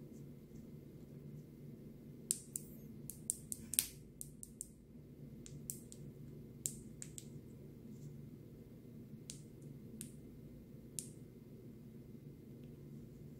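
Sun conure working its beak, making sharp separate clicks: a quick run about two to four seconds in, then single clicks every second or so, over a steady low hum. The bird is in a contented mood.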